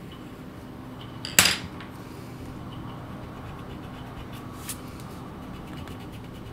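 A sharp clatter about a second and a half in, as a pencil is set down on the desk. It is followed by a few faint ticks and light scratching of a drawing tool on paper.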